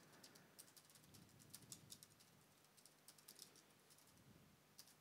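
Faint typing on a computer keyboard: a run of quick, irregular keystroke clicks.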